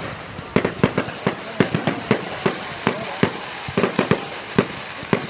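Fireworks going off: an irregular string of sharp pops and cracks, several a second, starting about half a second in.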